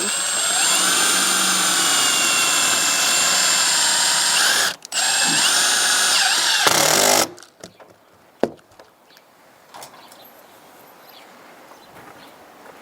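Power drill running under load in two runs, the first about five seconds and the second about two, then stopping, followed by a few faint clicks.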